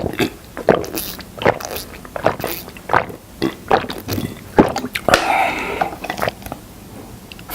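Close-up eating sounds of honey being chewed: irregular wet smacks and clicks of the mouth and teeth, with a short, fuller sound about five seconds in.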